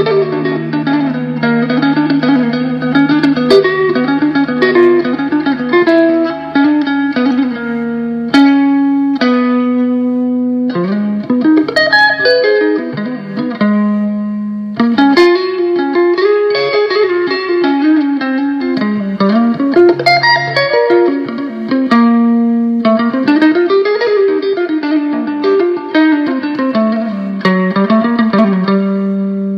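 1978 Greco Les Paul electric guitar fitted with Blues Engine PAF-type humbuckers, played through a NUX Mighty Air amplifier. It plays lead lines of quick note runs, broken by a few long held notes, one about eight seconds in and another past the twenty-second mark.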